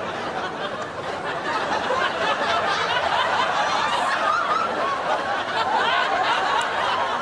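An audience laughing: many voices chuckling and laughing together, continuously.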